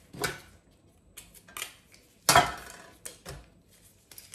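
Metal clinks and knocks from a stainless steel garlic press and a chef's knife against a stainless steel tray as garlic is crushed: a few separate sharp knocks, the loudest a little past two seconds in.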